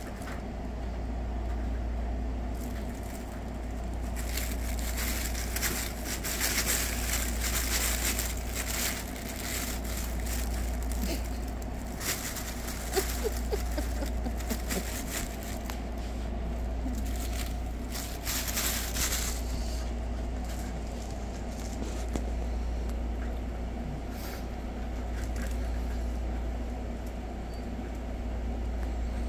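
Fabric pop-up cat tunnel rustling and crinkling in bursts as a cat paws into it and presses against it, most busily from a few seconds in until past the middle, over a steady low hum.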